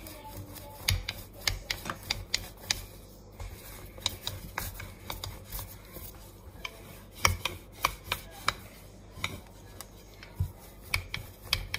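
Wooden rolling pin rolling out a sheet of yeast dough on a kitchen counter, with irregular light knocks and clicks as the pin and hands move over the dough.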